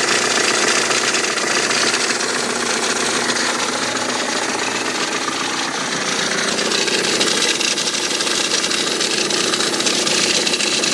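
Audi A4 B7 2.0 TDI four-cylinder turbodiesel idling steadily with an abnormal mechanical noise. The owner places the noise near the timing belt and suspects a failing water pump; it remains with the alternator belt removed.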